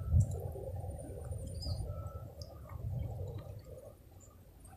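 Faint low rumble of hands handling the phone and its microphone, with a few short, faint high chirps. The rumble fades to near silence near the end.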